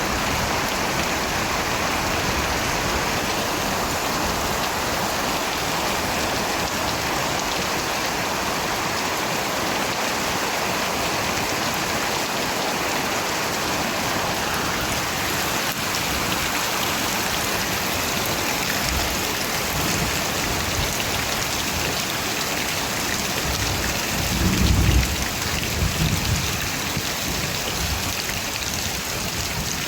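Steady rain, an even hiss of falling water, with a short low rumble of thunder near the end.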